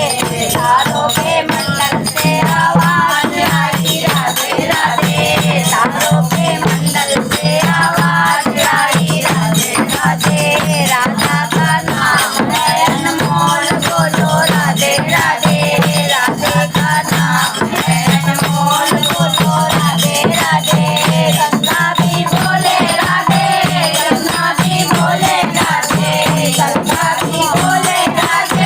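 Hindi devotional folk song sung to a steady rhythmic beat of hand percussion, with a shaken jingling rattle keeping time.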